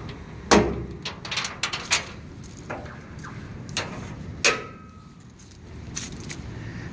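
Irregular sharp metal clicks and clanks from the steel drop-side gates and latches of a mini-truck cargo bed being handled. One knock about two-thirds of the way through rings briefly.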